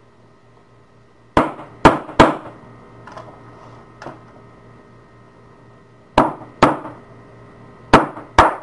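Hammer blows on the metal body of a padlock being stripped down: sharp ringing strikes in clusters, three quick blows, then a pair, then another pair, with a few lighter taps between.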